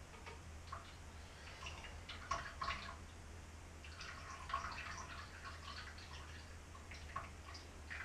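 Blended canary seed milk being poured and dripping through a strainer, faint, with irregular small splashes and light clinks of the jug and sieve, busiest about two and four seconds in.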